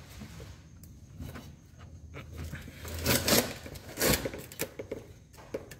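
Hand handling noises against a car's rear drum-brake assembly: light rubbing and scraping, a louder scrape about three seconds in and a short knock about four seconds in.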